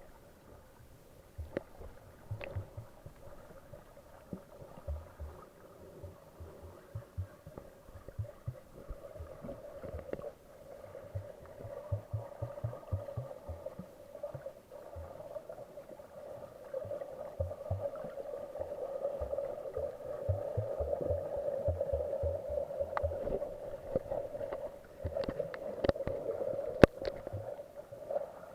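Muffled underwater sound of a snorkeling camera: a steady mid-pitched hum that swells about a third of the way in, with irregular low thuds and a few sharp clicks near the end.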